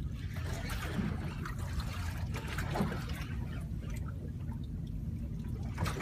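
Water lapping and sloshing against the hull of a small boat, over a steady low rumble.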